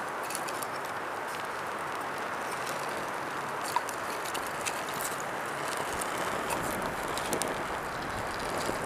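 Wood fire burning in a crisscrossed stack of split kindling: a steady rush of flame with a few sharp crackles, the loudest about four seconds in.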